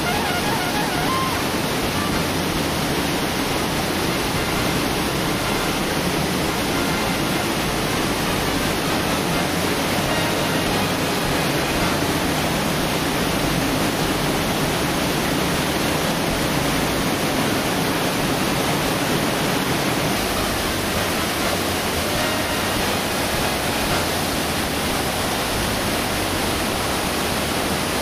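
Mountain river and waterfall rushing through a rocky gorge: a steady, unbroken rush of white water.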